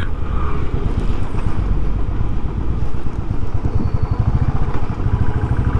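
Motorcycle engine running under way with a steady rhythmic low pulse, mixed with wind buffeting the helmet-mounted camera microphone, whose foam wind filter has come off.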